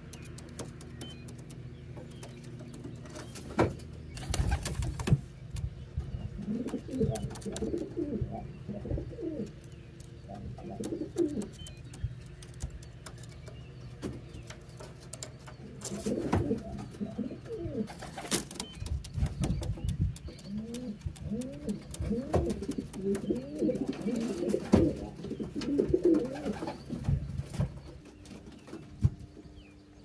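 Racing pigeons cooing in clusters of repeated, wavering coos, with a few sharp knocks, around four seconds in and again near the middle.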